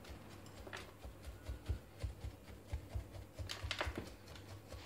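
A wooden chopstick jabs bonsai soil down among the roots of a freshly potted tree, working it into the gaps. It makes faint, irregular soft taps and gritty scratching, with a couple of sharper clicks about a second in and again around three and a half seconds in.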